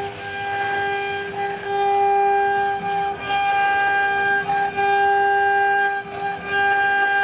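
CNC milling machine's high-speed spindle whining steadily as its cutter mills an aluminium plate. The tone breaks off briefly every second or two.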